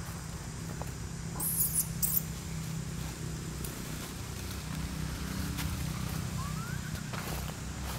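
Faint short rising squeak of an infant long-tailed macaque over a steady low rumble, with a brief burst of high scratchy rustling about one and a half to two seconds in.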